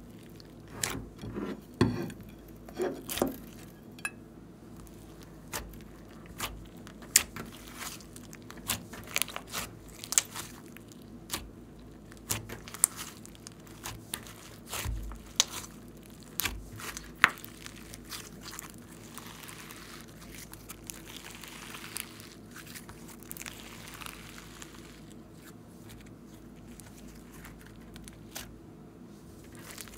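Hands kneading and pressing a large lump of airy slime mixed with glitter and confetti, making irregular sharp pops and crackles as trapped air bursts, busiest in the first half. Near the end the pops thin out to softer rustling and squishing.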